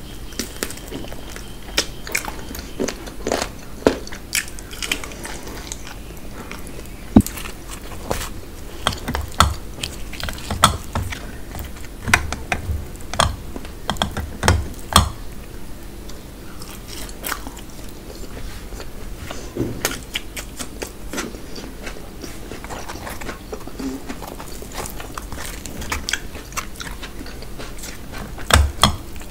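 Close-miked eating of puri with mutton curry: chewing and biting, heard as irregular sharp clicks and a few soft low thumps, along with fingers tearing puri and scooping curry.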